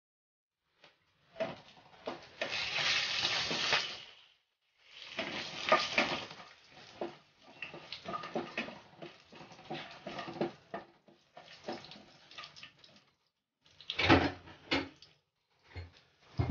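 Whole spices sizzling in hot ghee and oil in a non-stick kadai, a hiss that comes and goes in stretches of a few seconds. A wooden spatula stirs and scrapes them against the pan, with a few sharper knocks near the end.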